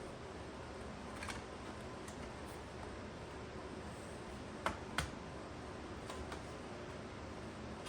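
Sharp small clicks from handling the plastic parts of a laptop being reassembled: one faint click, then two loud ones about a third of a second apart near the middle, and a few faint ticks after. A steady low hiss lies under them.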